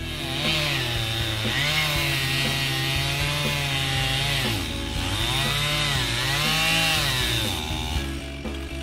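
Chainsaw running at high revs and cutting into a standing tree. Its pitch sags and recovers several times as the chain loads up in the cut. It runs in two long passes with a short drop between them, and falls away near the end.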